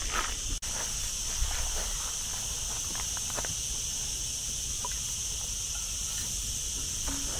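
Steady, high-pitched buzz of cicadas in hot, dry scrub, with faint rustles and clicks of a backpack being lifted off and handled.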